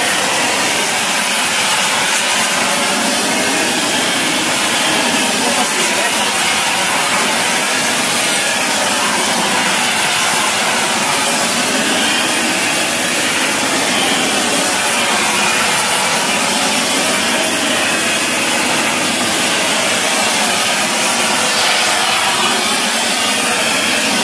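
Flux-cored arc welding on a steel pipeline repair sleeve: the arc gives a steady, unbroken hiss.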